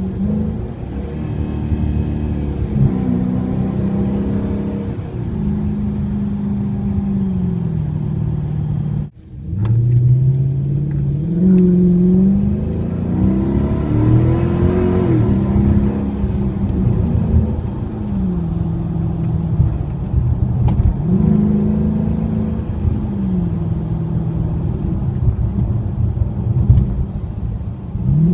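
Dodge Charger R/T's 5.7-litre HEMI V8 with its mid mufflers deleted, pulling repeatedly: the exhaust note climbs with the revs, then falls back as it shifts or lifts off. The sound cuts out briefly about nine seconds in.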